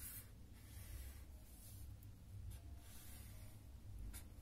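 Pen drawing lines on paper: several faint, short scratchy strokes at irregular intervals, over a steady low hum.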